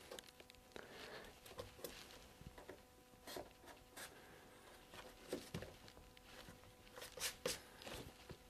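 Near silence with a faint steady hum and scattered soft taps and knocks from hands handling plywood strips on a workbench, as a freshly CA-glued strip is pressed and held in place. A few of the knocks, about five and seven seconds in, are a little louder.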